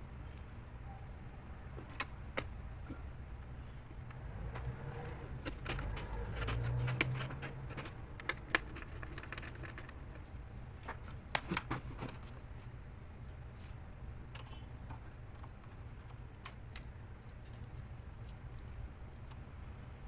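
Irregular small clicks and taps of laptop parts and tools being handled during disassembly, over a steady low hum.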